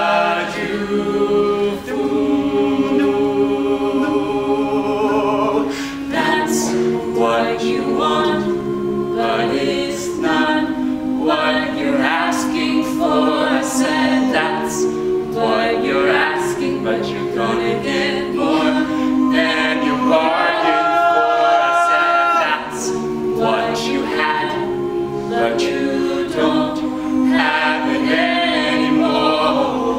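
Mixed a cappella vocal group singing wordless sustained chords, joined about six seconds in by a steady beat of vocal percussion under the harmonies.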